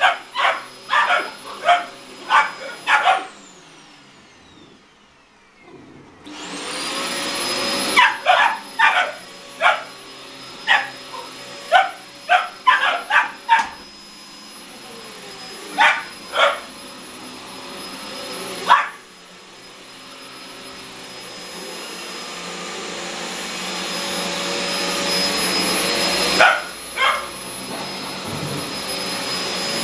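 Boxer puppies barking at a vacuum cleaner, in quick runs of sharp barks. The vacuum cleaner runs down and stops about three seconds in, starts up again about six seconds in, and then runs steadily to the end while the barking tails off to a couple of last barks.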